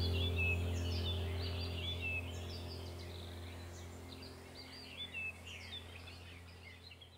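Small birds chirping rapidly over a steady low hum, the whole sound fading out gradually.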